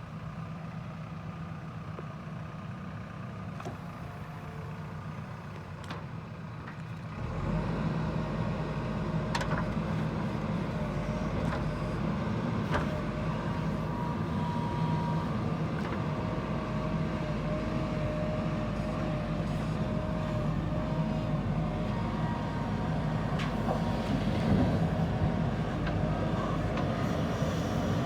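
JCB 3DX backhoe loader's diesel engine running, stepping up to a louder, heavier working note about seven seconds in. A thin whine and scattered clicks and knocks run over it.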